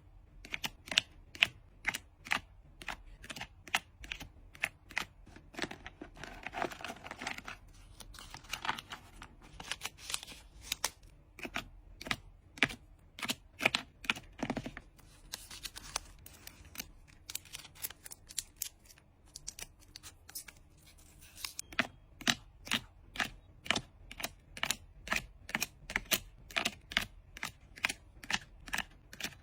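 Rapid, sharp clicks and taps, about two to three a second, from hands handling trading cards and packing materials, with a few short stretches of rustling between them.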